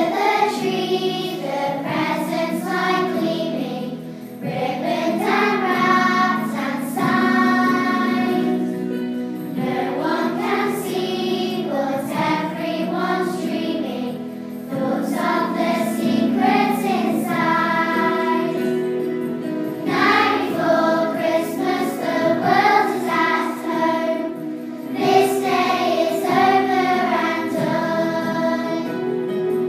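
A class of primary school children singing together as a choir, one sung phrase after another.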